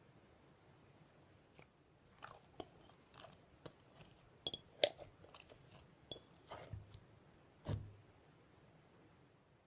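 Slime being played with ASMR-style: a faint, irregular run of crunchy clicks and small pops that starts about a second and a half in, with a sharper pop near the middle and a fuller squish near the end.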